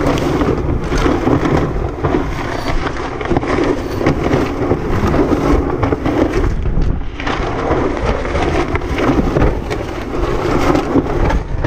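Strong wind buffeting the microphone on a sailboat under sail: a dense, low rumble that gusts up and down without a break.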